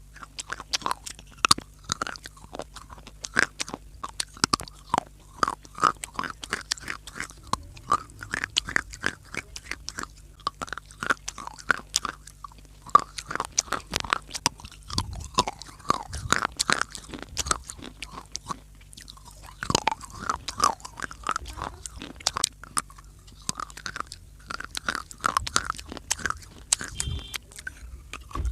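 A person biting and chewing dry clay close to the microphone: a rapid run of sharp, brittle crunches and crackles, with a short lull about two-thirds of the way through.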